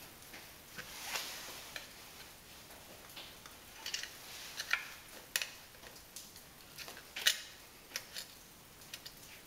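Screwdriver clicking and scraping against the metal water pump parts of a Yamaha outboard jet lower unit as the old impeller is pried up off the drive shaft. Scattered, irregular clicks, the sharpest a little after seven seconds in.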